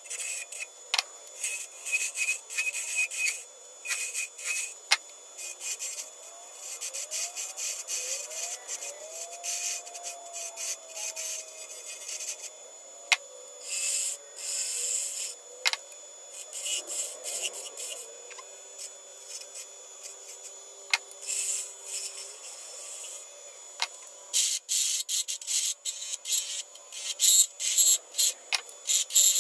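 A lathe is turning a maple and purpleheart ornament while a carbide-tipped tool cuts the spinning wood, throwing off shavings. The scraping cutting noise comes and goes in short, irregular strokes, with a few sharp ticks.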